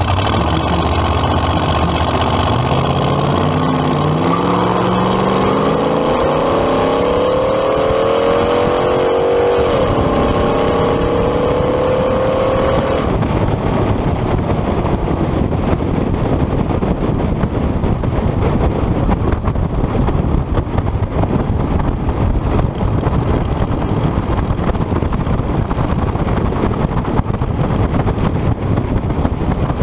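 Hot rod engine with twin carburetors making a drag strip pass: the engine note climbs hard from the launch, drops sharply about nine seconds in as it shifts gear, and climbs again. About thirteen seconds in the note cuts off as the throttle is lifted, leaving a rush of wind and engine noise while the car coasts.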